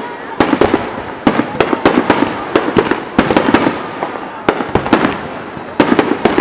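Fireworks bursting in quick succession: sharp bangs, several a second, over a continuous crackle, easing for a moment and then a fresh dense volley near the end.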